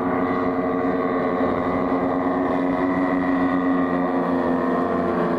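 Engines and propellers of large-scale radio-controlled warbird models, a twin-engined Heinkel He 111 and Junkers Ju 87 Stukas, droning steadily in flight overhead, with several engine tones sounding together.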